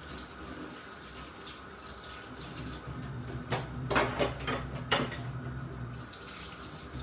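Water running from a kitchen tap into a sink, with a few sharp knocks of something set down or handled about halfway through.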